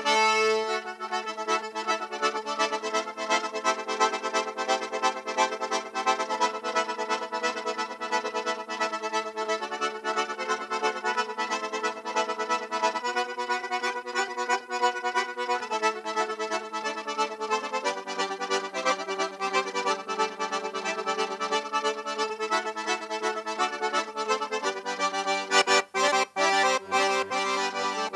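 Piano accordion playing a traditional Chechen melody: a moving tune over held chords and a steady low note, with a couple of brief breaks near the end.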